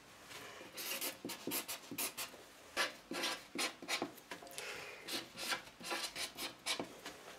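Paint marker writing on a strip of card: an irregular run of short strokes, a few a second, as letters are drawn.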